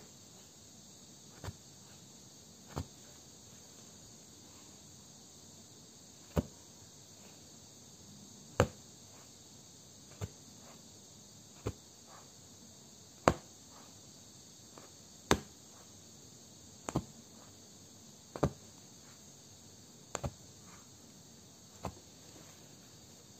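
Punch needle threaded with yarn driven through fabric stretched taut in an embroidery hoop: a sharp pop each time it is pushed all the way in, about a dozen at uneven intervals of one to two seconds. A steady high hiss runs underneath.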